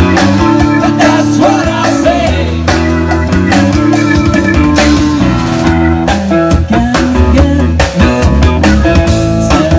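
Rock band playing: guitar over bass and drum kit, with a singing voice.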